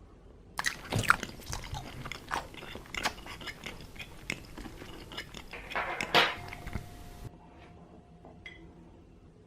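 Close-miked ASMR eating sounds: crunchy biting and wet chewing, a dense run of crackles and clicks with a loud crunch near the end, which stops abruptly.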